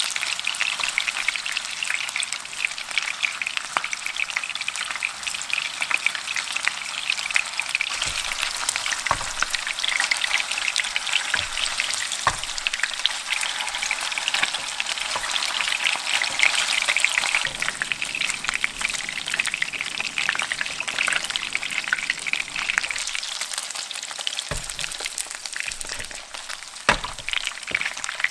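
Meatballs sizzling and crackling as they fry in oil in a frying pan, with a few soft knocks as a wooden spatula turns them.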